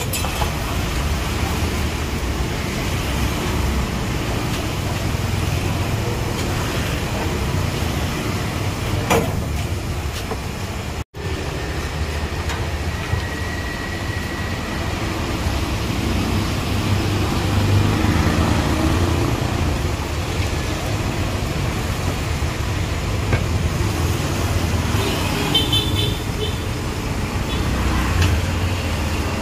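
Steady road traffic noise, with a few short horn toots near the end. The sound drops out for a moment about eleven seconds in.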